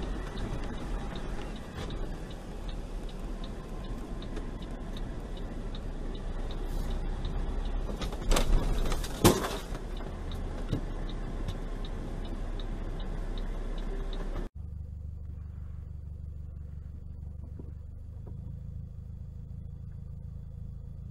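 Dash-cam cabin audio of a vehicle driving: a steady engine and road rumble with a faint regular ticking, broken about eight to nine seconds in by two loud, sudden sounds. About two thirds of the way through it cuts abruptly to a quieter, steady low vehicle hum.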